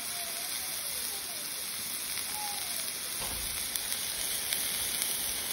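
Raw ground-chicken patties sizzling with a steady hiss on a hot Blackstone flat-top griddle, its surface at about 430°F.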